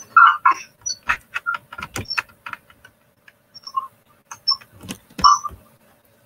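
Irregular clicking and clatter of a computer keyboard being typed on, with a few louder knocks about a third of a second in and again about five seconds in.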